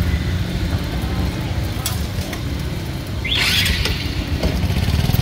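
A motor engine running steadily, heard as a low, finely pulsing rumble of street traffic. A single click comes about two seconds in, and a short hiss a little after three seconds.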